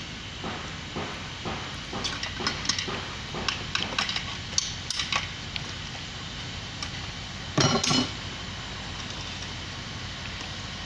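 Irregular metallic clinks and knocks of hand tools and engine parts during engine dismantling, with one louder clatter about eight seconds in.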